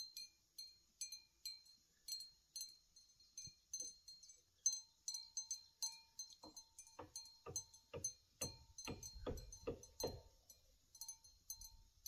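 Sheep bells clinking faintly and irregularly, short metallic strikes that ring briefly, as the sheep move and graze. From about six and a half seconds in, a run of soft low thuds, two or three a second, for several seconds.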